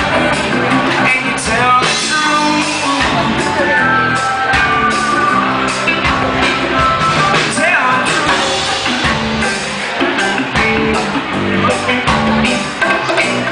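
Rock band playing live, with electric guitar and a drum kit, at a steady, loud level.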